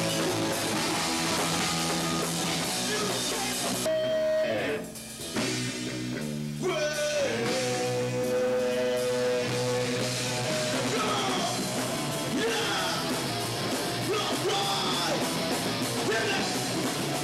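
Punk rock band playing: electric guitars, drum kit and a singer. The music thins briefly about four to five seconds in, then a long note is held for a few seconds.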